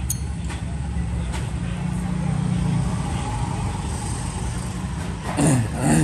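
Steady low rumble of background traffic, with a few faint clicks of a metal keychain being handled. A brief, louder swishing noise comes near the end.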